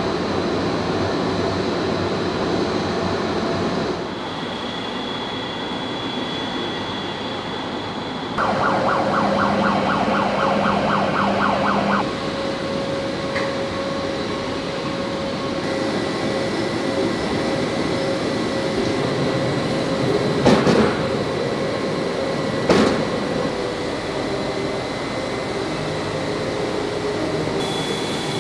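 Heavy industrial machinery noise in a forging plant, changing abruptly every few seconds: a steady hum and hiss with high whining tones, a stretch of rapid ticking at about five a second, and two loud knocks a couple of seconds apart past the middle.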